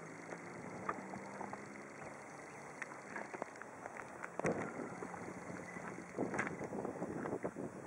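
Wind on the microphone of a handheld camera on an open mountain pass, with scattered clicks and a knock about four and a half seconds in, a faint steady low hum under it in the first part, and gustier noise near the end.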